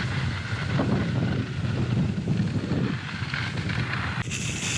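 Wind rushing and buffeting over the microphone of a skier's action camera during a fast downhill ski run, a low, fluctuating rumble.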